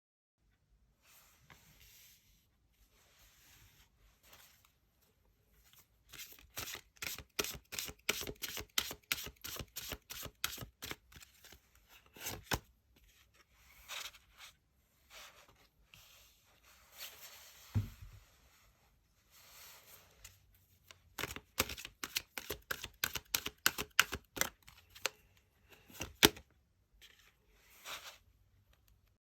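Tarot cards being shuffled and handled: quick runs of papery card slaps and rustles in two main spells, with a single soft low thump between them.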